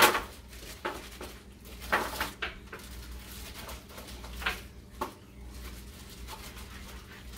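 Baby carrots shaken out of a plastic zip bag and dropping onto a baking pan: scattered light knocks and clicks with some plastic crinkle, the sharpest right at the start.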